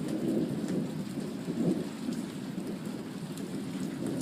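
Steady rain falling from a passing thunderstorm, an even hiss without breaks.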